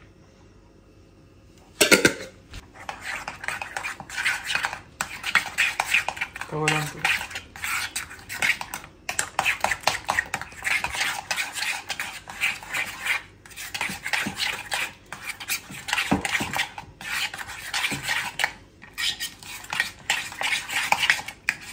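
A spoon scraping and clinking against a bowl as it stirs a thick yogurt and masala-powder marinade, in quick irregular strokes with short pauses, starting about two seconds in.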